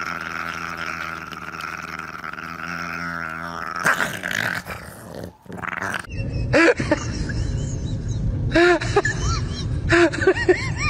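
Two pugs growling steadily while they chew and tug at a bone toy. After a cut about five seconds in, two Shiba Inus squabble face to face: low growling broken by short, sharp yaps, several in quick pairs.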